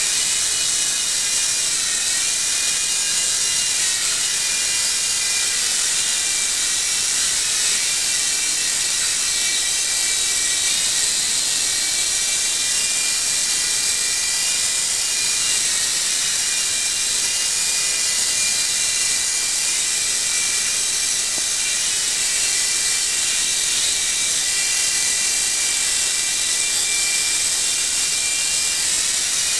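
Infrared-controlled toy helicopter hovering: the steady high whine of its small electric motors and whirring rotor, the pitch wavering slightly as it holds its hover.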